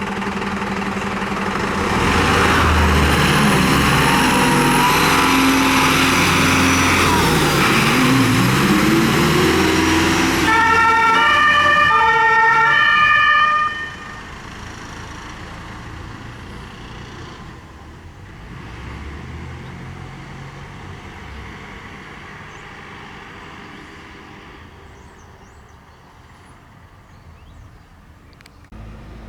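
A fire engine drives off with its engine revving loudly, then sounds its alternating two-tone siren for about three seconds, partway through. The level drops suddenly after the siren, and the engine fades away.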